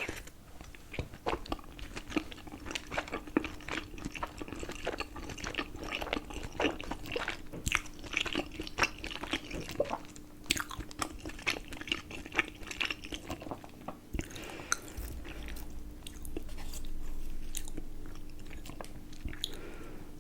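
Close-miked chewing and biting of momos (steamed dumplings), with many quick wet mouth clicks and crackles. Near the end it turns into a smoother, steadier stretch.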